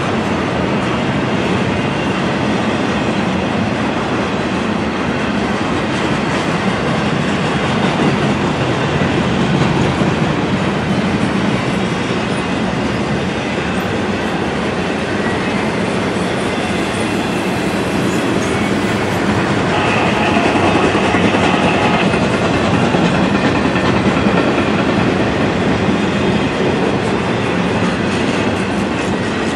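Double-stack intermodal well cars of a freight train rolling past, a loud steady rumble of wheels clacking on the rails. A faint high steady tone joins about two-thirds of the way through.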